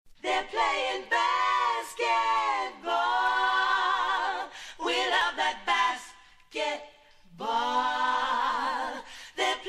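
Unaccompanied singing in long held notes, some with vibrato, broken by short pauses and a gap of about a second past the middle.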